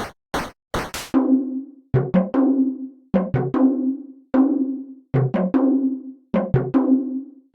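Percussion loop: even, sharp clicks for about the first second, then a repeating drum pattern of low thumps and pitched drum hits that ring out and die away, in groups of two or three.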